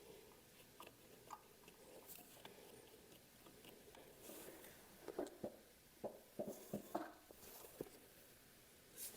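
Near silence, broken by faint scattered clicks and taps from hand work on a motorcycle's rear brake while its fluid is being bled. About five to seven seconds in there is a cluster of sharper short knocks.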